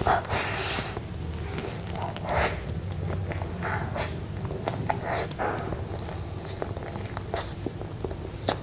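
Close-miked eating of soft cream-frosted cake: a loud wet bite as a big forkful goes into the mouth about half a second in, then soft, moist chewing with small mouth clicks.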